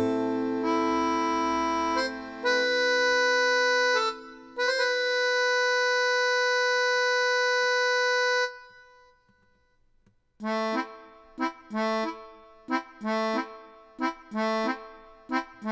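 Soundtrack music on accordion: held chords that change every second or two and stop about eight and a half seconds in. After a gap of near silence, short chords pulse on and off a little under twice a second.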